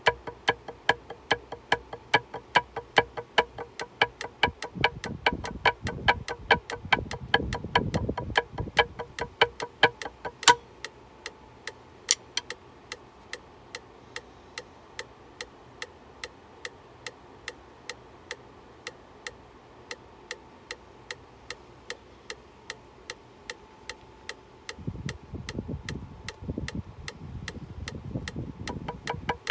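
Metronome clicking at a steady tempo. About ten seconds in there is one sharp knock, and the clicks become thinner and quieter. Low rustling handling noise comes twice, mid-way and near the end.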